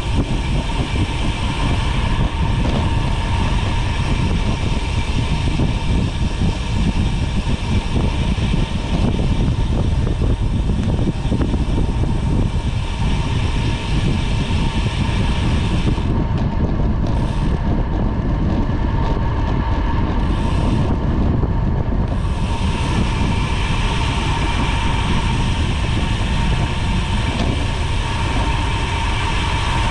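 Wind rushing over the microphone and tyre noise from a road bicycle on the move, a steady low rumble with a faint steady high tone running through it. The upper hiss thins out for a few seconds in the second half.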